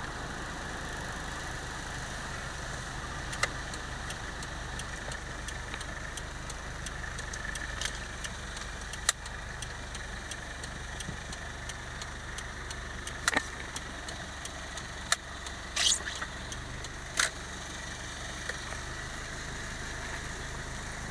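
Steady car engine and road noise, with a low hum, broken by a scattering of sharp clicks.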